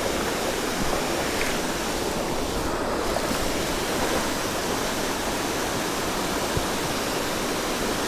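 Steady rush of creek water pouring over a low weir.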